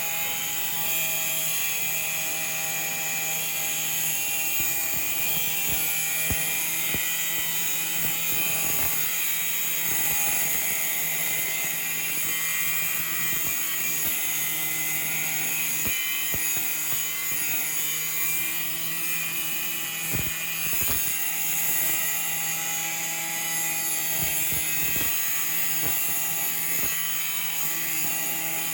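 An electric power tool running steadily at high speed, a constant whirring hum with a hissy edge, with scattered short knocks and crackles.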